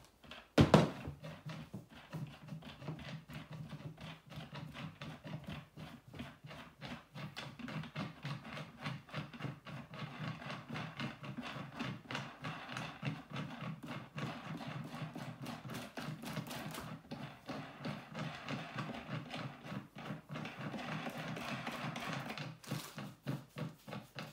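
Furniture assembly noise: a sharp knock about half a second in, then a long run of small rapid clicks and creaks as the wooden legs of a baby changing table are twisted and pressed into their plastic fittings.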